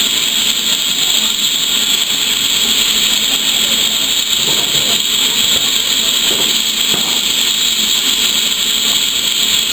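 Steam locomotive letting off steam: a loud, steady hiss that holds without a break.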